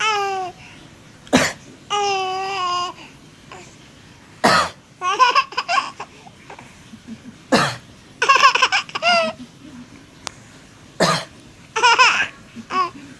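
A man coughs four times, each a single short cough, and after each one a baby breaks into high-pitched giggles.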